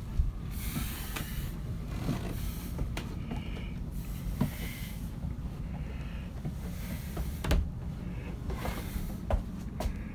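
Handling noise from a handheld camera carried through a yacht's cabin: a steady low rumble with scattered light knocks and short rustles.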